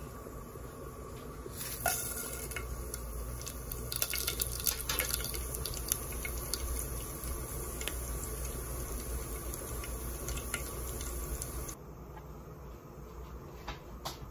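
Whole spices and dried red chillies sizzling and crackling in hot oil in a pot: a steady hiss with many small pops. It starts with a sharp crackle about two seconds in and cuts off a couple of seconds before the end.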